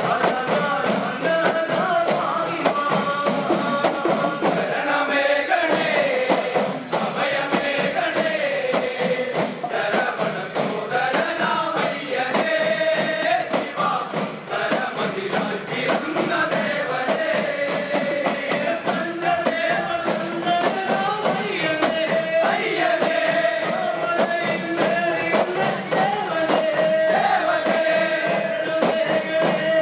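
Group of men singing a Malayalam Ayyappa devotional chinthu pattu in chorus, accompanied by a fast, steady beat on small hand drums.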